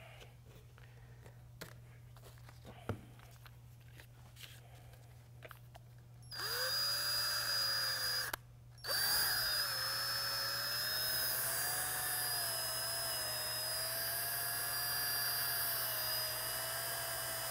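Cordless drill spinning a paddle mixer to blend two-part epoxy resin in a plastic mixing cup. After a few seconds of faint handling clicks the drill starts about six seconds in, pauses briefly about two seconds later, then runs again steadily, its whine wavering slightly in pitch.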